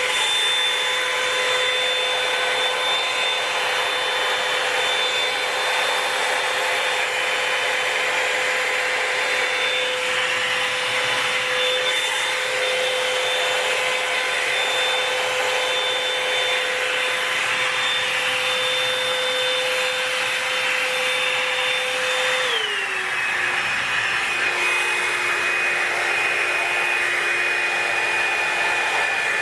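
Revlon One-Step Volumizer hot-air brush running on high: a steady fan whine over rushing air. About three quarters of the way through, the whine drops to a lower pitch and carries on.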